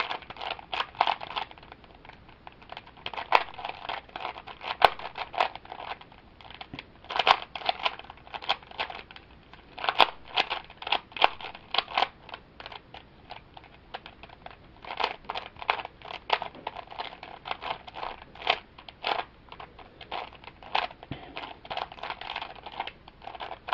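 Plastic 3x3 Rubik's cube being turned quickly during a solve: rapid, irregular clicking and clacking of the layers, in flurries with short pauses between them.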